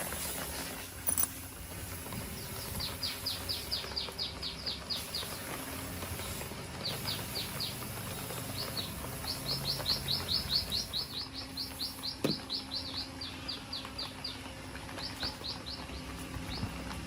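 A small bird trilling in several bouts of rapid, high, downward-slurred chirps, about eight a second, with a couple of sharp knocks.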